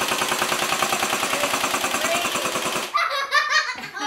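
Toy blaster's electronic machine-gun sound effect firing a fast, even stream of shots that cuts off about three seconds in, followed by excited voices and laughter.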